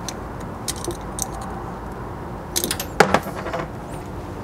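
Light metallic clicks and clinks of the brake hose banjo bolt and its old crush washers being worked loose with a pick tool, scattered through, with a louder cluster of clinks about three seconds in.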